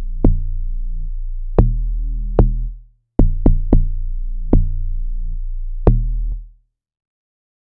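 Amapiano-style electronic beat playing back from a music program: drum-machine hits over deep, sustained bass notes. The playback cuts to silence for a moment about three seconds in, and again for about a second near the end.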